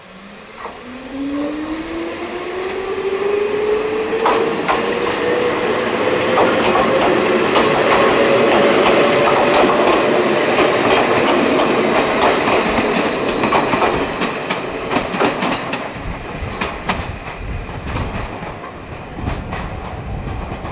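Ichibata Electric Railway 3000 series electric train (ex-Nankai 21000 series) pulling away and accelerating past. Its traction motors give a whine that rises steadily in pitch over the first ten seconds or so. The wheels click over the rail joints as the cars go by.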